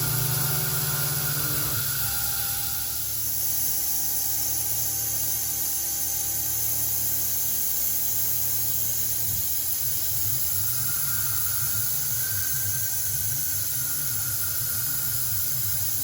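CNC mill machining: a steady hiss with a thin steady tone, and from about halfway a low hum that wavers up and down in pitch.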